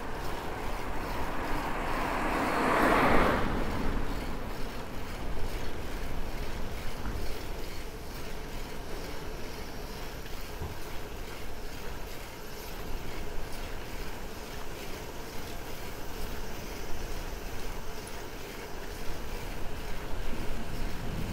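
A car passing close by: its tyre and engine noise swells to a peak about three seconds in, then fades. After that comes a steady low rumble and wind noise from riding along the road.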